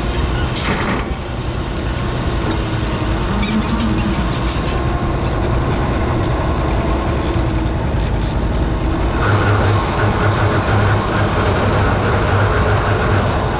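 Oliver 77 tractor's six-cylinder engine idling steadily, heard from on the tractor, with a short knock about a second in and the engine running louder from about nine seconds in.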